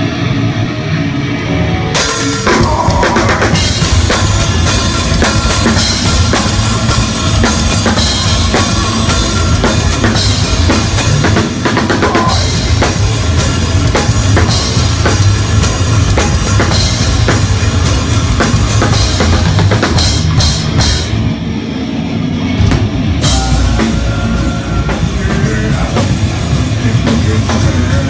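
Heavy metal band playing live: distorted electric guitar, then the drum kit and cymbals come in about two seconds in and the full band plays a heavy driving groove. The cymbals drop out for a moment about twenty-one seconds in before the full band comes back.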